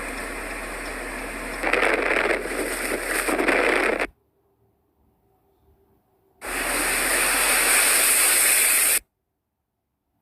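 Steady rushing noise of blizzard wind, cut off abruptly twice by edits to near silence, about four seconds in and again about nine seconds in.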